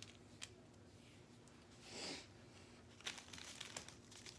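Faint crinkling and clicking of small plastic bags of diamond painting drills being handled, with a soft rushing sound about halfway through.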